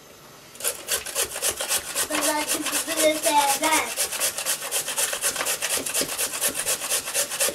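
A carrot being grated by hand on a metal box grater: quick, regular rasping strokes, several a second, starting about half a second in.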